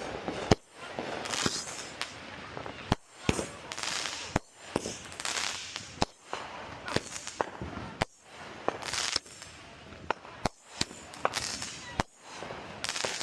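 Fireworks going off all around: about a dozen sharp bangs at irregular spacing, with bursts of hissing between them.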